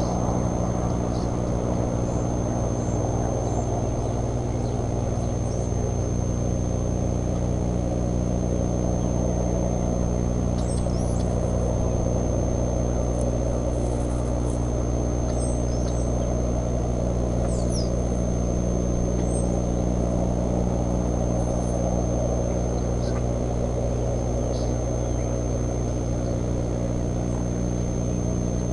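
Steady low hum under a constant thin high whine, with short high bird chirps scattered through the middle, most of them between about 10 and 18 seconds in.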